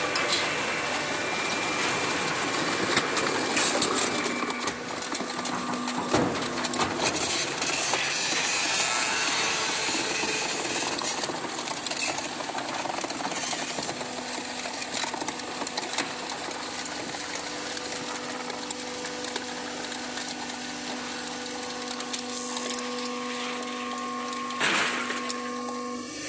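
Horizontal baling machine running: a steady hum under a noisy mechanical clatter, with a few sharp knocks, one about six seconds in and one near the end.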